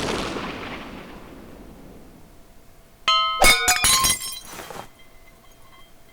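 Cartoon sound effects: a crash dies away over the first couple of seconds, then about three seconds in comes a quick run of bright, ringing clinks lasting under two seconds.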